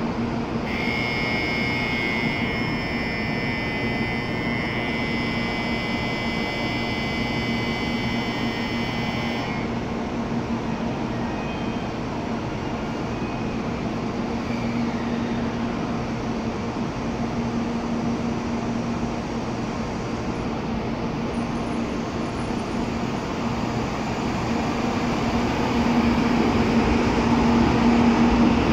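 An electronic platform departure bell rings steadily for about nine seconds over the constant hum of N700-series Shinkansen trains standing in the station. Near the end the sound grows louder as the N700A train starts to pull out.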